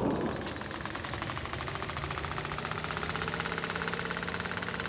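A machine running with a fast, very even mechanical clatter, many ticks a second, over a steady low hum. A deep rumble fades out in the first half-second.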